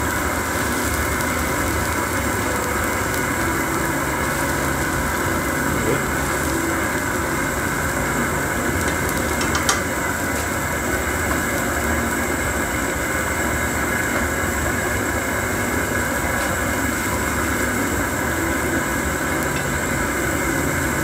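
Steady roar of a propane burner running under a pan of soup, with a few light clicks about halfway through.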